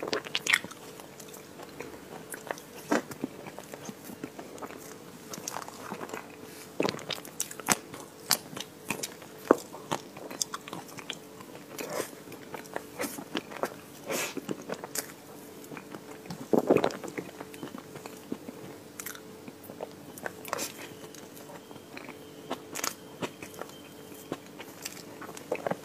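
Close-miked eating of chocolate ice cream cake from a metal spoon: irregular wet chewing and lip smacks with sharp clicks, over a faint steady hum.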